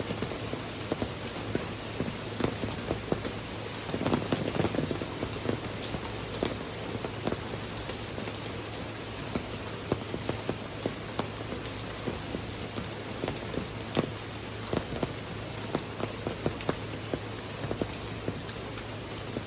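Heavy rain pouring steadily, with many sharp individual drops and splashes striking a surface close by.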